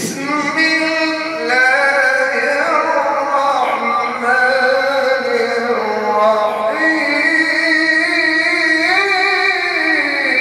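A male qari reciting the Quran in the melodic tajweed style: long drawn-out phrases of held notes, ornamented with glides up and down, amplified through a microphone.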